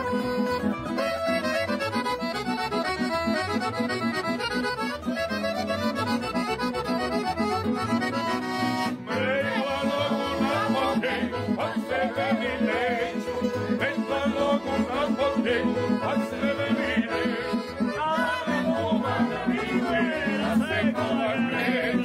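Background music: an accordion-led folk tune over a steady, pulsing bass beat, with a wavering lead melody coming in about nine seconds in.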